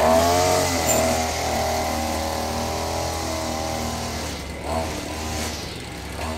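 Petrol string trimmer engine running at high revs as it cuts grass. Its pitch rises at the start and then holds, with a brief rev blip about four and a half seconds in, and it grows fainter as the trimmer moves away.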